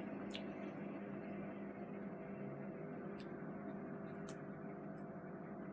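Steady low household hum with several faint steady tones, broken by four faint sharp clicks of a cockatiel's beak pecking at food.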